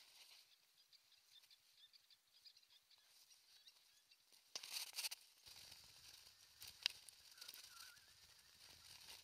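Near silence: faint outdoor ambience with distant bird chirps. About halfway through come a few sharp clicks and rustles, then a faint low rumble.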